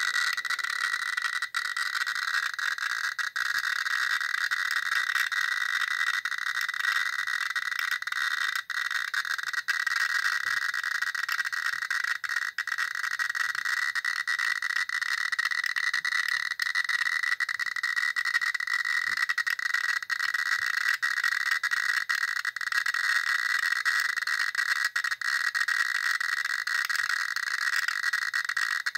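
Geiger counter clicking so fast that the clicks run together into a steady crackling buzz. It is counting around 5,000 counts per minute from a radioactive thorium mineral (thorianite), a high radiation reading.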